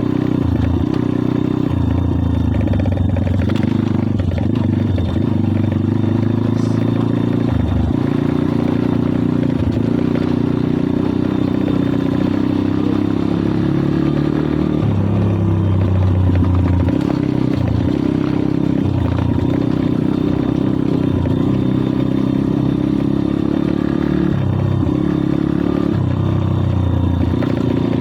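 Kayo 140cc pit bike's single-cylinder engine running under way, its note rising and dropping in steps as the rider changes throttle and gears.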